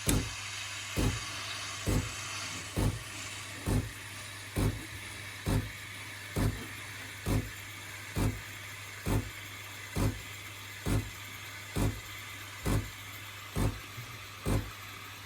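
Sage Barista Touch (Breville Barista Touch) espresso machine texturing milk with its steam wand: a steady low hum with a regular pulse about once a second over a faint hiss, the rhythmic pumping of its thermojet steam system.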